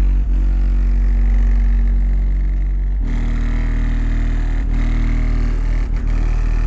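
12-inch subwoofer playing deep, sustained bass notes at high volume, with a dense buzz of overtones; the note changes abruptly about 3 seconds in.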